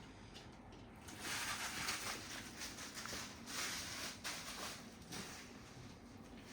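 Soft rustling and handling noise, coming in several swells over a few seconds.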